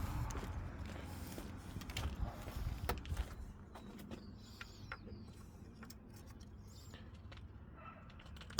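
Faint clicks and light knocks from a replacement fuel pressure sensor and tools being handled and pushed into place in a car's engine bay, with a low rumble over the first few seconds.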